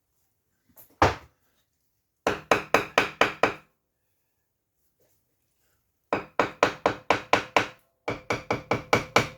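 Rapid taps of a mason's tool on a brick, bedding it into fresh mortar: a single knock about a second in, then three runs of quick strikes, about five a second, the last run with a faint ring.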